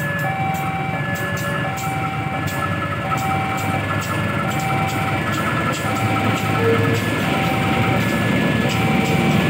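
A KAI CC 201 diesel-electric locomotive runs as it hauls a passenger train out of the station, with a steady low engine drone that grows louder near the end as it passes close by. A two-tone electronic warning signal repeats in the background, alternating between a higher and a lower note.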